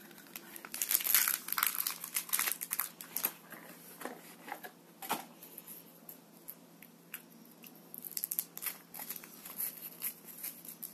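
Crinkling of thin plastic packaging and foil wrapper being handled and peeled off a chocolate surprise egg. It comes as runs of sharp crackles, densest in the first three seconds, thinning out around the middle, and picking up again near the end.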